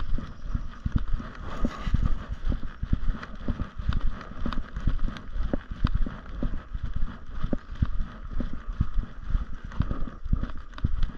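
Steady, rhythmic footfalls on a dirt and gravel trail, about two a second, each a dull thud.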